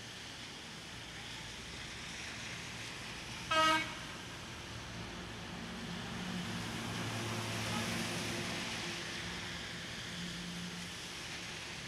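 Steady rain hiss with street traffic; a vehicle horn gives one short toot about three and a half seconds in, and a passing vehicle's engine swells and fades, loudest around eight seconds.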